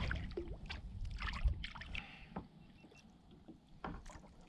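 Light clicks and taps of handling on a fishing kayak, scattered through the first two seconds and again near the end, over faint wind and water hiss.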